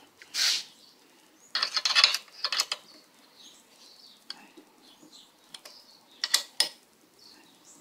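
A hex key clinking and scraping in bolt heads and washers as bolts are screwed into a motorcycle's metal tail-light mounting plate. There is a short rattly cluster of clinks about one and a half to two seconds in, then scattered single ticks.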